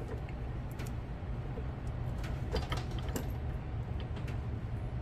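Line-spooling motor running steadily as 100 lb 12-strand braided line winds onto an Avet EXW50 reel, a low hum with scattered light clicks.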